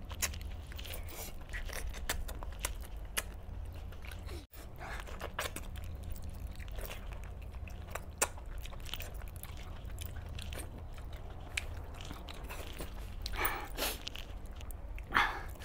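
Close-miked eating of chicken in gravy by hand: irregular wet chewing, smacking and biting clicks as meat is bitten and torn off the bone, a little louder near the end.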